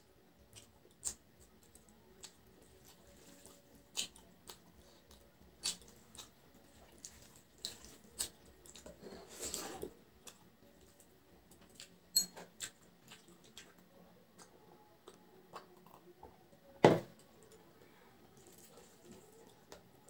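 Eating by hand: fingers mixing rice and curry on a plate and the mouth chewing, heard as a scatter of small wet clicks and squishes. There is a longer rustling stretch about halfway and one sharp knock late on.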